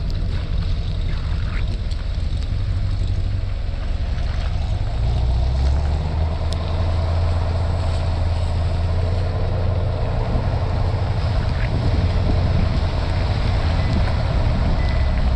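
Modified C7 Corvette Grand Sport's 6.2-litre V8 exhaust droning steadily at low speed, growing deeper and stronger about five seconds in, with wind noise on the microphone.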